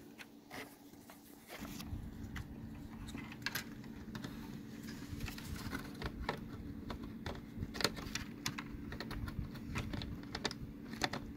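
Scattered small plastic clicks and rubbing as a cable connector is worked onto a SATA adapter by one hand, with a low steady hum underneath.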